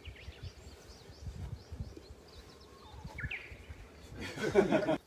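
Small birds chirping, with short repeated chirps and one louder call about three seconds in, over a low uneven rumble. Near the end comes a loud rustling burst of noise that cuts off abruptly.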